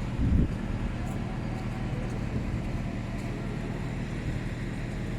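A large engine running steadily with a low hum, a short louder rumble right at the start.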